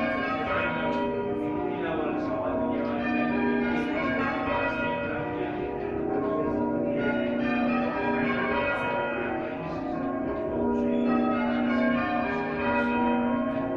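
Church bells ringing, one stroke after another, each bell's tone ringing on under the next strike.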